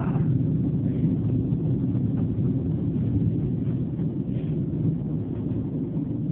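A steady low rumble of background noise, with nothing sudden or loud standing out.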